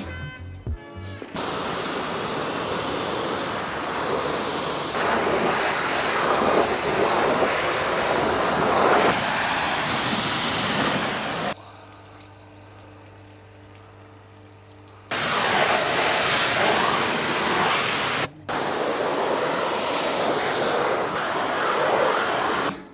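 Water spraying in a steady, loud hiss as a car is rinsed. It stops for about three and a half seconds midway, leaving faint background music, then starts again with a brief break near the end.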